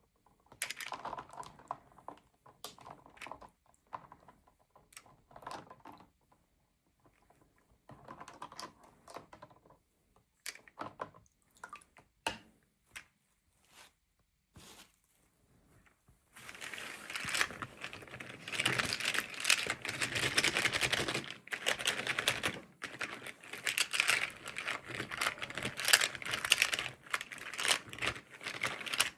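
Toy packaging being handled and opened: scattered light clicks and rustles, then from about sixteen seconds in, louder continuous crinkling of plastic wrapping.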